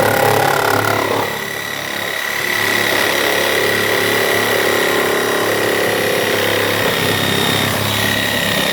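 Corded electric power saw running steadily with a high motor whine as it cuts through the plastic body of a Power Wheels ride-on toy, the load briefly easing about a second in.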